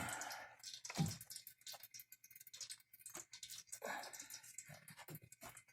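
Small clicks, knocks and wet squishing sounds of an oil filter, punctured and dripping oil, being gripped and twisted loose by hand, with a louder knock about a second in.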